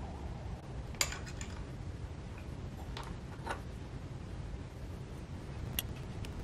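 A few light metallic clicks and taps, about a second in, twice around three seconds in and again near the end, from handling a freshly machined thin metal stepper motor bracket on the machine table.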